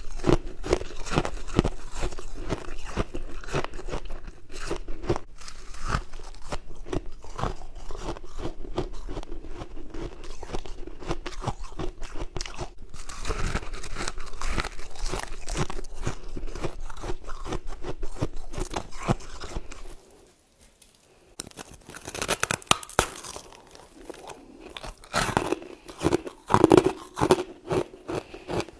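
Someone biting and chewing humidifier frost, the soft built-up frost scraped from a freezer. There is dense crunching and crackling, a brief pause about two-thirds of the way through, then louder, more separate crunching bites.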